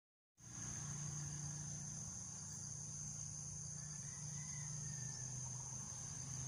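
Faint, steady insect chorus, crickets or similar, as one continuous high-pitched trill, with a low hum underneath. It begins about half a second in, after silence.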